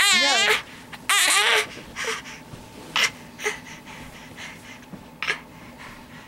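A baby about four months old vocalising: two loud, high, wavering squeals in the first second and a half, then quieter short breathy huffs and grunts.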